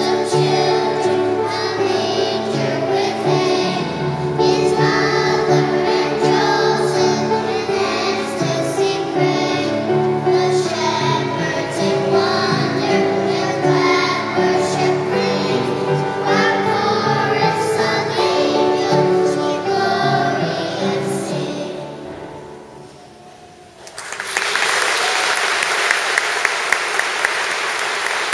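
Children's choir singing a Christmas carol, the final chord dying away; then an audience breaks into applause for the last few seconds.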